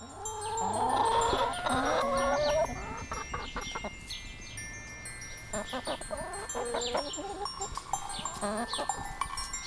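Hens clucking and calling, loudest in the first two and a half seconds, then softer scattered clucks.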